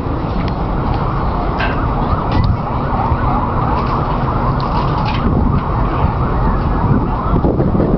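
Distant city street noise heard from high above Manhattan: a steady low rush with an emergency-vehicle siren wailing faintly through the middle.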